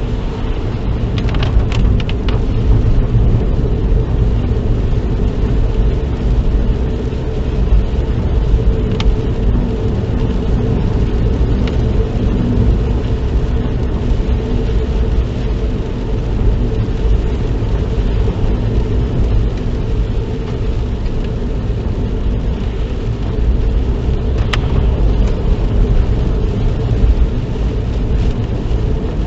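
Steady road and engine noise inside a moving car's cabin, mostly a low rumble, with a few faint clicks about a second in.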